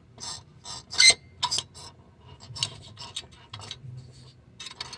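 Light metallic clicks and clinks from the float linkage and reset tab of a McDonnell & Miller #63M low-water cutoff being worked by hand, about ten small clicks scattered through, the sharpest about a second in.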